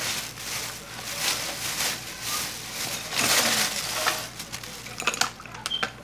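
Thin plastic grocery bag rustling and crinkling as it is handled, in uneven swells, with a few sharp clicks near the end.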